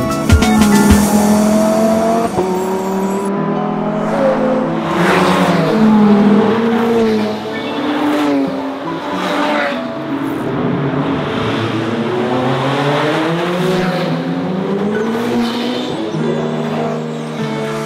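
Supercar engines revving hard, their pitch climbing and dropping again and again through gear changes, with several fast pass-bys.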